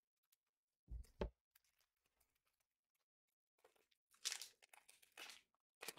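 Foil booster-pack wrapper crinkling and trading cards being handled, in short bursts, with two thumps close together about a second in.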